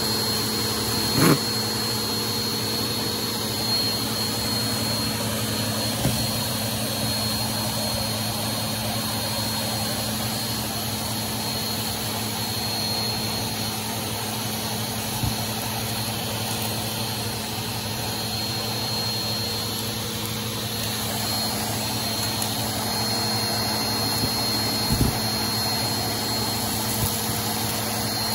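Vacuum cleaner running steadily with a constant hum and high whine, its bare hose nozzle sucking up a matted pile of lint, hair and grit from carpet. A few short knocks come through as bits of debris are pulled up the hose.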